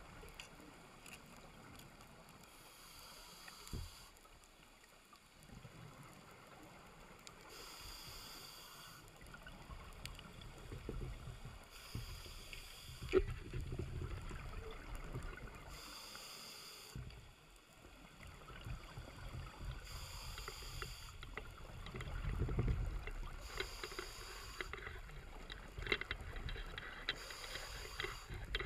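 Scuba breathing through a regulator, heard from a camera underwater: a hiss about every four seconds, with low bubbly rumbling of exhalations and water in between.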